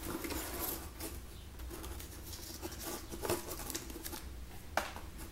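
Small folded paper slip being unfolded by hand: light rustling and crinkling, with a couple of sharper crackles in the second half, over a low steady hum.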